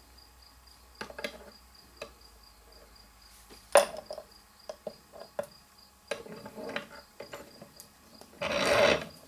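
Scattered clicks and small knocks of metal tools and a throttle cable being handled during a soldering repair, with one sharp knock about four seconds in and a short scraping rub near the end. A faint, even, high-pitched pulsing sits in the background.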